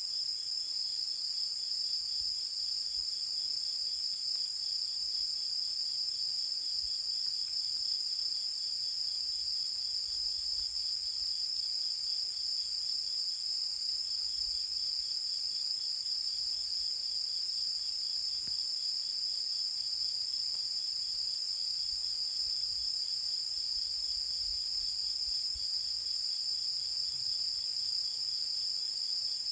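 A chorus of insects singing, a steady high-pitched chirring. Under it runs a fainter, lower, fast-pulsing trill that drops out briefly about halfway through.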